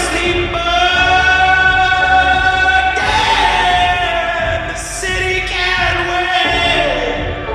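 Band music with layered, choir-like sung voices holding long notes without words.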